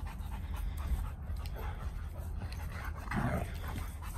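A husky and a young Rottweiler playing: scuffling and dog noises, with one short dog vocalization that falls in pitch about three seconds in.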